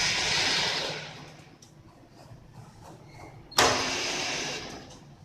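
Two short bursts of metallic scraping, one at the start and one about three and a half seconds in, each starting suddenly and fading over about a second, as a threaded gauge is turned on a freshly cut lathe thread that is a little tight.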